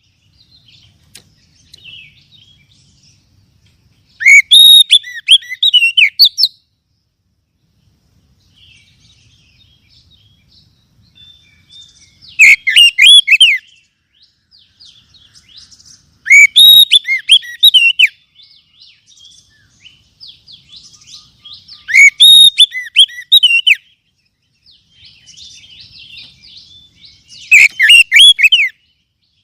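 Oriental magpie-robin (kacer) singing loud, fast, warbled phrases of about two seconds each, five times, with quieter chattering and twittering between them. It is a vigorous full song of the kind played as a lure to set a captive kacer singing.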